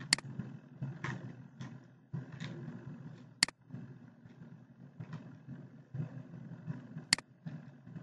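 Computer mouse clicking: three sharp single clicks a few seconds apart, over a steady low background rumble.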